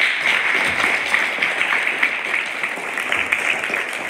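Audience applauding: many hands clapping together. It starts abruptly and eases off slightly near the end.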